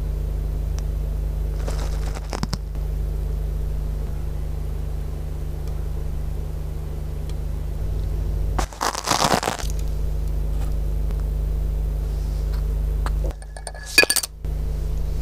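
Steady low mains-frequency hum with a stack of buzzing overtones, picked up by a microphone under an LED floodlight whose light is chopped at mains frequency. Handling clicks and rustles come about two seconds in and a louder scraping clatter around nine seconds, as the sample and microphone are adjusted. Near the end the hum drops out for about a second around a couple of sharp clicks, then returns.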